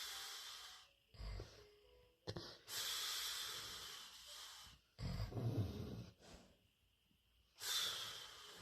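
Golden retriever snoring in its sleep: long airy hissing breaths alternate with shorter low rattling snores, about two breath cycles, with a quiet pause between them.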